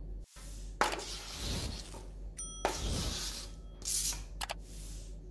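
Lemon pieces scraped and slid off a plastic cutting board into a glass bowl of chopped pumpkin and orange: several short rustling slides, with a light ringing clink against the glass about two and a half seconds in.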